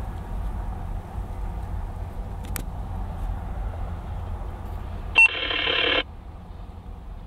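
A low steady rumble. About five seconds in, a sharp electronic beep is followed by a harsh buzzing tone that lasts under a second and cuts off suddenly.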